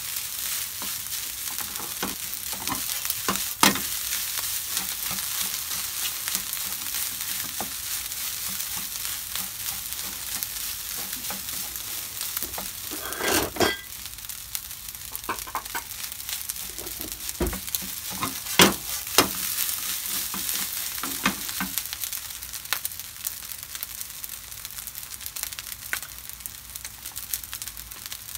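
Fried rice with sliced sausage, onion and green pepper sizzling in a frying pan as a wooden spatula stirs and scrapes through it, with scattered sharp taps and knocks of the spatula against the pan.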